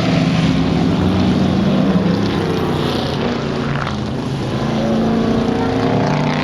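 Several racing car engines running hard close by, a dense mix of engine notes, with one car's pitch rising near the end as it accelerates.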